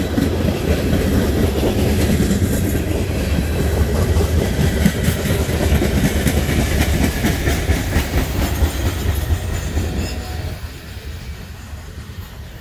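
Norfolk Southern coal hopper cars rolling past at close range: a low rumble with the steel wheels clicking over the rail joints. The sound falls away about ten seconds in as the end of the train passes and moves off.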